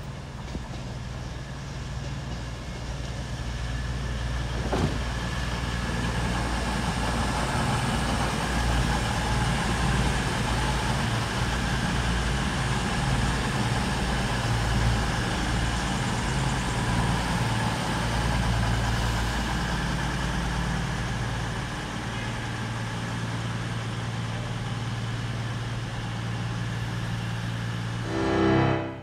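CrossCountry Class 221 Super Voyager diesel multiple unit running through the station on its underfloor diesel engines, a steady low engine throb that grows louder over the first few seconds as the train comes close. There is a single click about five seconds in.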